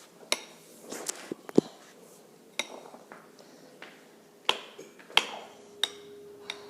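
Utensil knocking and clinking against a mixing bowl while slime ingredients are stirred, in sharp taps at irregular intervals. A faint steady hum comes in about five and a half seconds in.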